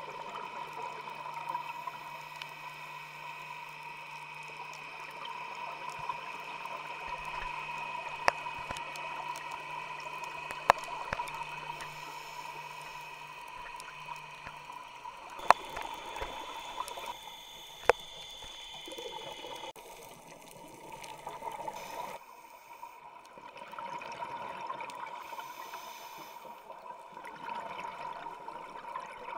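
Underwater sound on a scuba dive, heard through a camera's housing: a steady hiss with a faint thin whine, gurgling from a diver's exhaled regulator bubbles that swell and fade every few seconds, and four sharp clicks.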